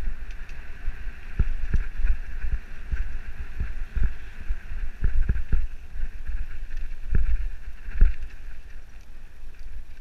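Mountain bike descending a rough dirt trail, heard from a helmet camera: a low rumble of wind on the microphone over a steady higher hiss, with a dozen or so knocks and rattles as the bike hits bumps.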